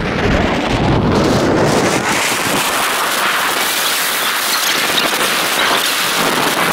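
Wind buffeting the microphone of a phone filming from a vehicle moving along an open highway, a loud, steady rush. About two seconds in the low buffeting drops away, leaving a higher hiss.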